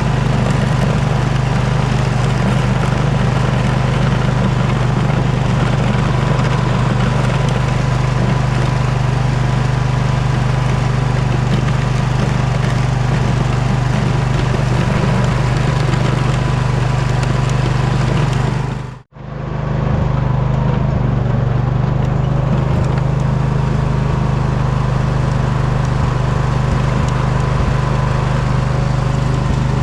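Poulan riding mower engine running steadily under load with a constant low hum. The sound cuts out for a split second about two-thirds of the way through, then carries on unchanged.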